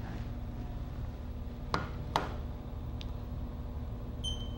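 Haas CNC mill control panel standing by with a steady low hum; two sharp clicks about halfway through, then a single short, high beep from the control as a key is pressed near the end.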